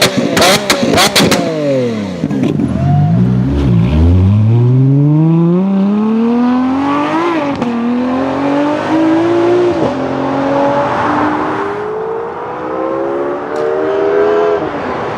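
Supercar engine: a rapid string of exhaust pops and crackles in the first second, the revs falling away, then the car pulling hard up through the gears. The pitch climbs and drops back with each of several quick upshifts.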